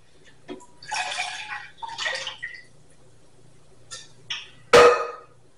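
Water poured into a saucepan in two short splashes, followed by a few light clinks and then a single sharp knock of something hard being set down, the loudest sound.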